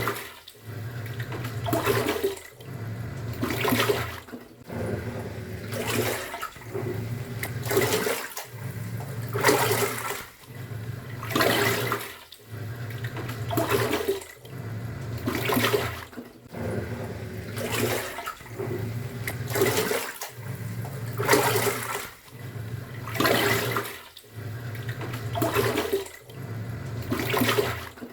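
Top-loading washing machine agitating: the pulsator motor hums and the water swishes for about two seconds, pauses briefly, then turns the other way, over and over.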